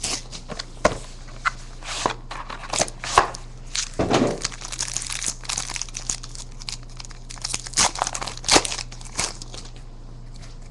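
Crinkling and tearing of a trading-card pack wrapper being opened, with cards and packaging handled in irregular bursts.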